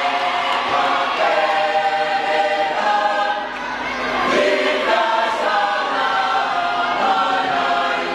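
Youth choir of mixed women's and men's voices singing in harmony, unaccompanied, in phrases of held notes with a short break for breath a little before halfway.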